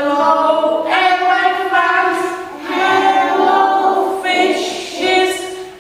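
Voices singing a song together without accompaniment, in held sung notes broken into short phrases.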